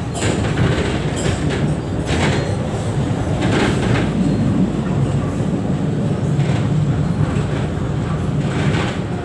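LRT-1 3rd-generation light rail train running, heard from inside its front cabin: a steady low rumble with a few sharp clacks at irregular moments.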